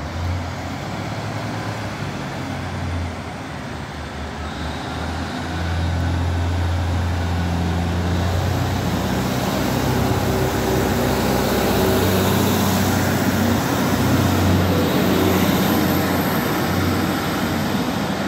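Northern Class 156 diesel multiple unit passing close along the platform, its underfloor diesel engine running with a steady low hum. The engine gets louder about five seconds in and then holds steady.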